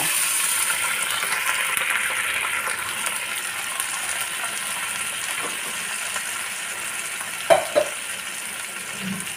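Honey-lemon sauce sizzling and bubbling hard in hot oil and fried garlic in a frying pan, just after being poured in, slowly dying down. Two short knocks come about three-quarters of the way through.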